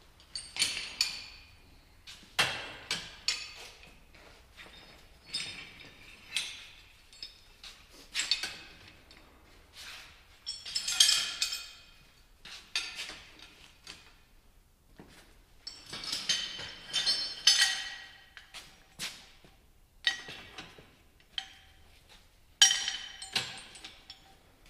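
Heavy steel chains and load binders clinking and clanking against each other and a steel tube rack as they are handled and hung up. The strikes come in irregular clusters, a few ringing on briefly.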